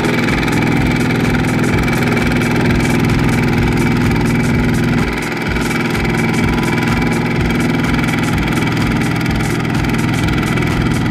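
Kubota RT140 walking tractor's single-cylinder diesel engine running steadily under load with a fast, even thudding, hauling a loaded rice trailer. The engine dips briefly about five seconds in, then picks back up.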